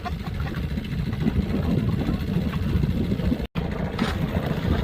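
Small outboard motor running steadily with a dense low rumble. The sound cuts out for a moment about three and a half seconds in.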